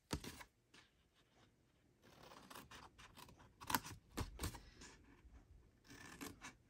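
Small craft scissors snipping into cardstock: several short, sharp cuts with pauses between them, as slits are cut along the score lines.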